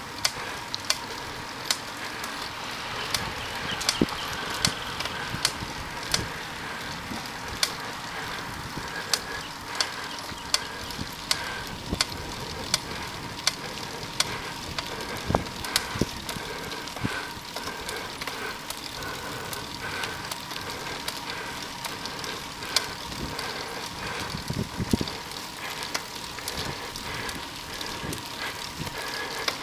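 Bicycle rolling on an asphalt road, picked up by a bike-mounted camera: a steady hum of road and wind noise with sharp clicks and rattles every second or so.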